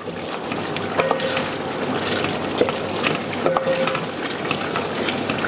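Chicken karahi gravy sizzling in a metal karahi while a wooden spoon stirs and scrapes through it. The curry is cooking down as the water from the yoghurt and tomatoes dries off.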